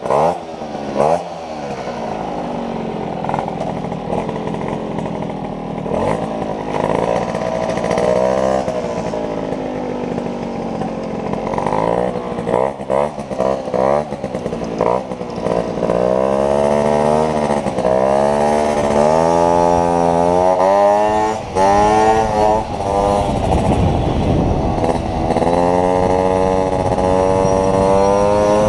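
Small motorcycle engine revved in a few quick blips, then pulling away and accelerating, its pitch repeatedly climbing and falling back as it goes up through the gears, and held high near the end.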